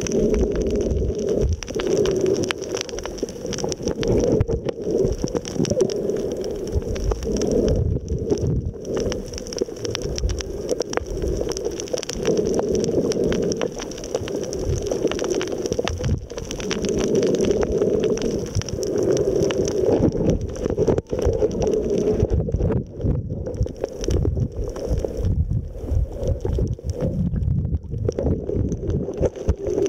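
Underwater ambience picked up by a camera held below the surface while snorkeling: muffled water noise that swells and eases every few seconds, with a crackle of many small clicks throughout.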